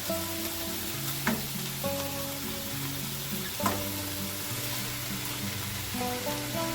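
Chicken, mushrooms and vegetables sizzling steadily as they stir-fry in oil in a pot, with two short knocks as the food is stirred, about a second in and past the middle.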